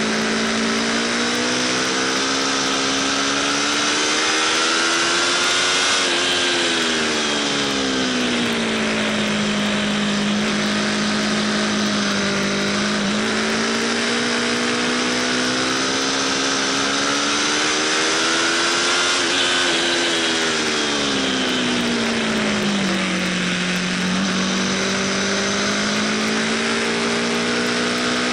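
Aprilia RSV4 Factory's V4 engine pulling hard at speed, heard from on board over a steady rush of wind. Its pitch climbs slowly for several seconds and then drops back, twice, and settles at a steady lower pitch in between.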